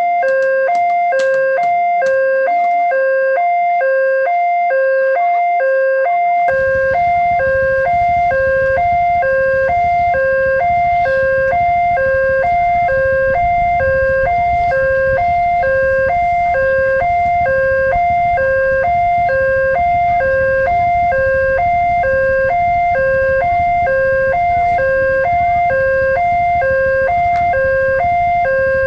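Railway level-crossing warning alarm sounding its fast-tempo electronic two-tone signal, a higher and a lower tone alternating in quick, even repeats. A low rumble joins about six seconds in and continues under the alarm.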